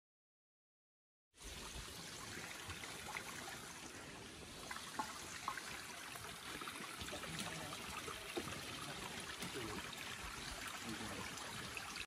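Water trickling and running over rocks in a small rainforest stream: a steady rush that starts about a second and a half in, after silence.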